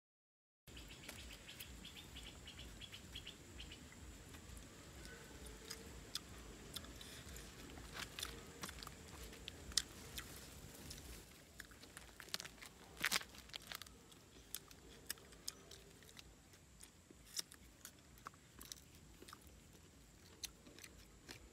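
Faint eating sounds of grilled frogs being bitten and chewed by hand: scattered sharp crunches and clicks of small bones over a quiet outdoor background.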